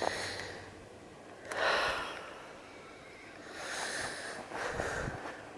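A person breathing close to the microphone: one loud breath about a second and a half in, then two softer ones near the end.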